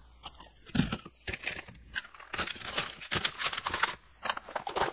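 Foil zip pouches of freeze-dried macaroni and cheese crinkling and rustling as they are handled and packed into a plastic storage bin, a string of irregular crackly rustles.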